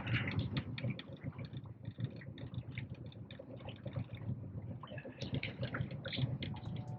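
Water splashing and lapping against a small boat's hull, with many small crackling ticks, over the low steady hum of the boat's idling engine.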